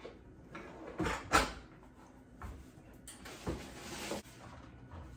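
A kitchen drawer being pulled open, with several sharp knocks and clunks, then an oven door being pulled open with a short rush of noise that cuts off suddenly.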